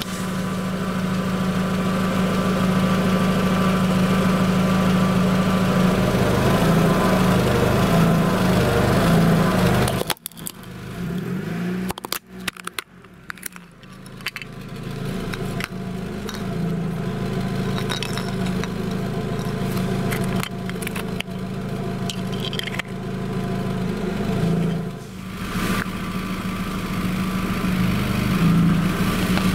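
A car engine idling with a steady low hum, heard close to the ground by the wheel. About ten seconds in it drops away suddenly to quieter crackling and clicking, then the engine hum comes back.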